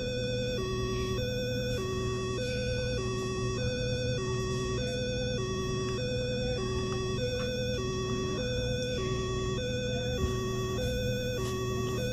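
Two-tone hi-lo siren, alternating evenly between a higher and a lower pitch about once a second, over a steady low hum.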